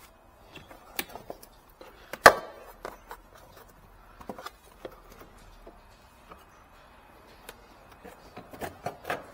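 Plastic inner fender liner in a car's wheel well being flexed and pulled free by hand. It gives scattered clicks and knocks, one sharp loud click about two seconds in, and a quicker run of clicks near the end.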